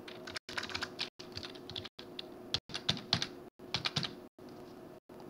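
Computer keyboard keys typed in quick, irregular clicks as a password is entered. The typing stops about four seconds in, leaving a faint steady hum, and the recording cuts out briefly at regular intervals.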